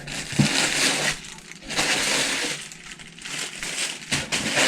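A shipping package being torn open by hand: three long rasping tears and crackles of packaging, with a few sharp clicks.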